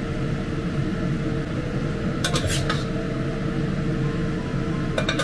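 Metal spatula scraping and clinking against a ceramic plate while bean curd sticks are scooped onto it, in two short bursts of clicks about two seconds in and near the end, over a steady mechanical hum.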